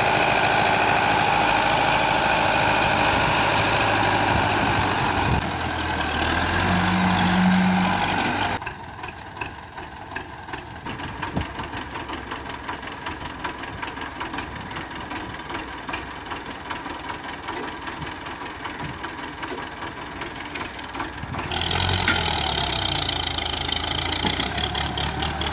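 Tractor engine running steadily and loud while a front loader tips a bucket of soil into a trolley. After about eight seconds it drops to a quieter idle with light clinks, and about 21 seconds in the engine comes up loud again as the tractor pulls the loaded trolley away.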